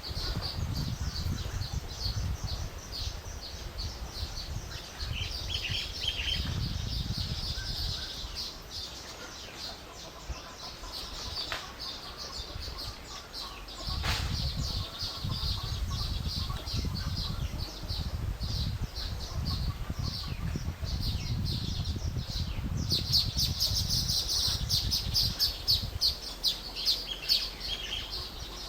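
A colony of weaver birds chattering, many rapid high chirps overlapping continuously and growing busier near the end, over a low rumble.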